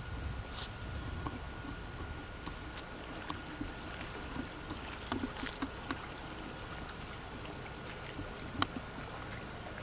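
Quiet outdoor ambience under a steady hiss and a faint constant tone, with scattered small clicks and one sharper click near the end.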